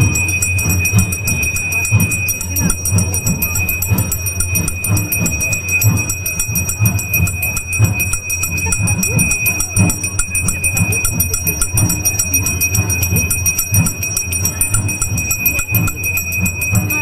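A bell rung rapidly and continuously, giving a steady high ringing tone, over frequent low drumbeats, as ritual music during worship of a Himachali village deity.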